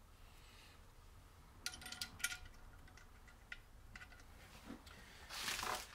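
A few light metallic clinks and taps as small steel parts are fitted and handled against the aluminium gearbox bell housing, the clearest pair about two seconds in, then a louder rattling scrape near the end.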